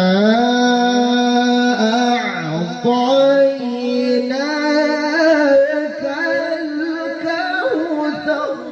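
Male qari chanting a long, melismatic phrase of Quran recitation (tilawah) into a microphone, holding sustained notes with ornamented turns, the phrase trailing off near the end.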